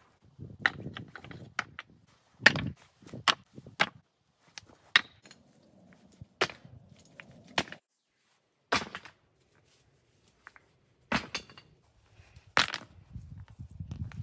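Wood being worked by hand: a series of sharp, irregularly spaced wooden knocks and cracks, closer together in the first few seconds and sparser later, with low crunching and rustling between them.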